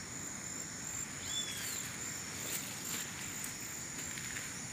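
Steady high-pitched insect chorus, with a short bird chirp about a second in and a few light clicks.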